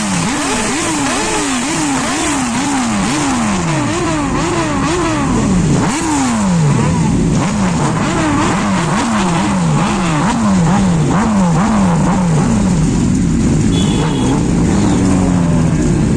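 Kawasaki Ninja H2's supercharged inline-four exhaust, revved over and over in quick throttle blips, about two a second, the pitch climbing and dropping each time. It settles into a steadier rev near the end.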